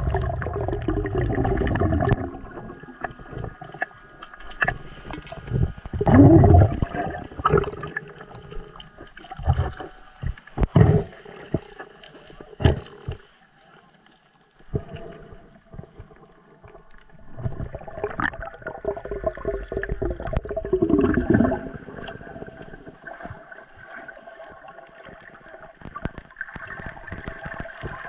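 Muffled underwater sound picked up on a diving camera: irregular gurgling and bubbling swells with a few sharp knocks and clicks from handling, over faint steady hum tones.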